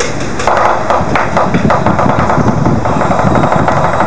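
Lion dance percussion: a big drum beaten continuously under rapid, repeated cymbal crashes, loud throughout.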